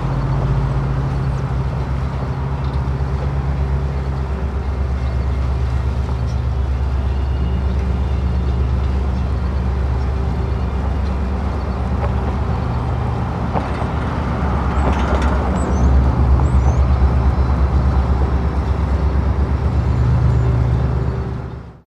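Diesel locomotive engine running with a steady low drone, its pitch stepping down and up a few times and growing louder after the middle, before cutting off at the end.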